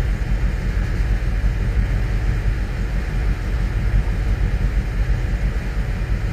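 Steady low rumble with an even hiss over it, with no distinct knocks or calls.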